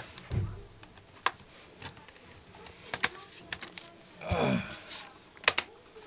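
Scattered sharp plastic clicks and a soft knock as a laptop keyboard is pressed and snapped into its clips, with a short creak with a falling pitch about four seconds in.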